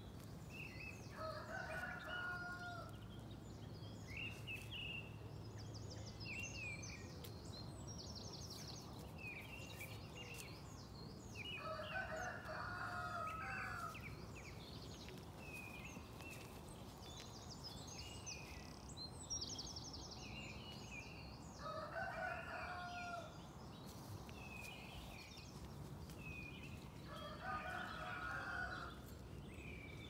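A rooster crowing four times, each crow lasting about a second and a half, over a continuous chorus of songbirds chirping and trilling.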